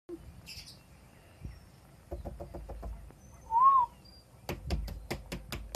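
A short whistled note that rises and then falls, with quick runs of sharp clicks before and after it.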